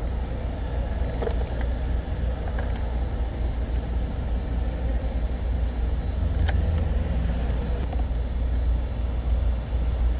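Steady low rumble with a few light sharp clicks, the loudest about six and a half seconds in.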